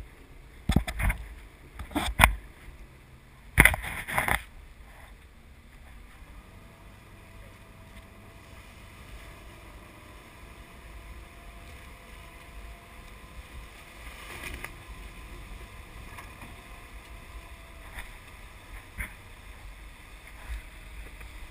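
Parasail boat's motor running steadily under wind noise, with a few loud rushing bursts in the first four seconds.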